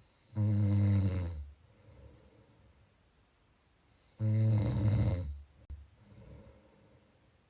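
A person snoring: two loud snores about four seconds apart, each lasting about a second and followed by a softer breath.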